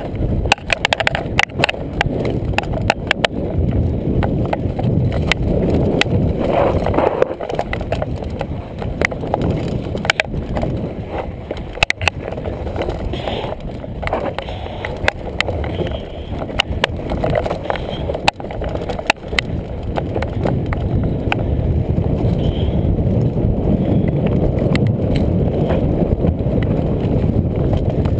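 Mountain bike riding down rocky singletrack: a steady rumble of tyres on dirt, with frequent sharp clicks and knocks as the bike rattles over stones.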